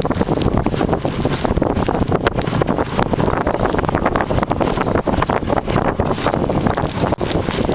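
Wind rushing over the microphone of a camera riding on a moving dog sled, with the sled scraping and rattling over snow. Many small knocks run through a steady, loud rush.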